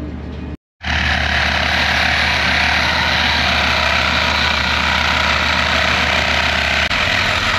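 Reciprocating saw cutting steadily through a corroded, mussel-encrusted pipe. It starts loud just under a second in, runs without pause, and stops near the end.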